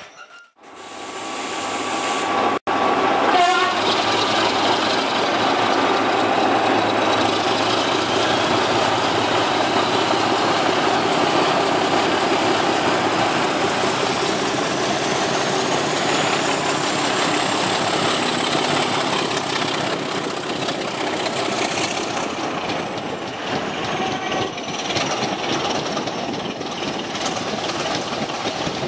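Class 25 diesel locomotive D7628, with its Sulzer engine, working hard as it hauls its train, heard from an open carriage window behind it, with the train's wheels running on the rails. A thin high whine climbs slowly over ten seconds or more and then falls away.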